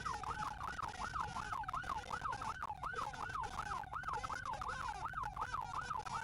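Police cruiser siren in fast yelp mode, its pitch sweeping rapidly up and down about three times a second, heard through the patrol car's dashcam.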